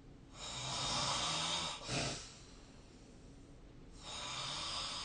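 A sleeping person snoring: a long rasping, hissing breath of about a second and a half ends in a short snort about two seconds in, and after a quiet pause the next snoring breath begins about four seconds in.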